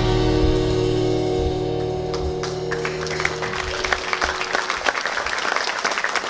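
A live band's final held chord rings out and fades. Audience applause starts about two and a half seconds in and swells to steady clapping.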